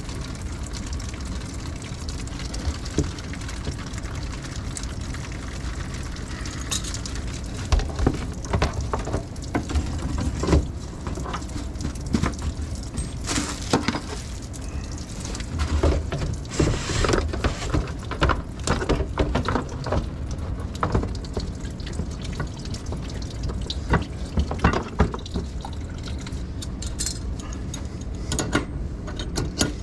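Water running from the sink down through a plastic drain tailpiece and trap, a steady rush with irregular knocks and splashes, busiest through the middle. The new drain connection is being run with water to test its seal.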